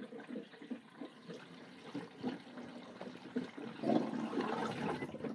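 Gray water draining through the motorhome's newly plumbed drain line and clear hose, a faint steady running of water that grows louder about four seconds in.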